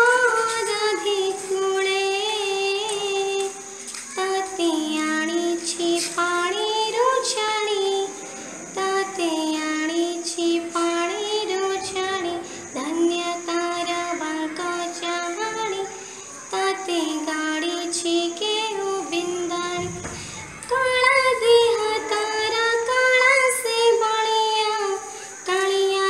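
A girl's voice singing an Odia devotional bhajan to Lord Jagannath. The melody comes in phrases of about four seconds with short pauses between them, over a steady high-pitched hiss.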